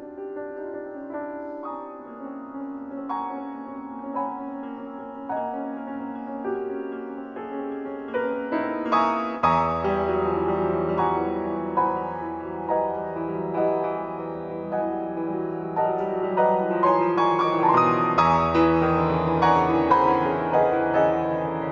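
Solo grand piano playing slow, quiet chords in the middle register. About halfway through, deep bass notes come in and the playing grows louder and fuller.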